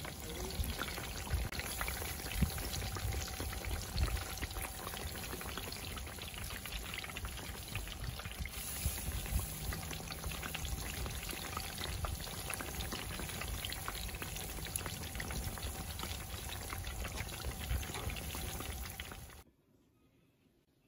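Chapli kebab patties shallow-frying in hot oil in a frying pan: steady sizzling with dense crackle. It cuts off suddenly near the end.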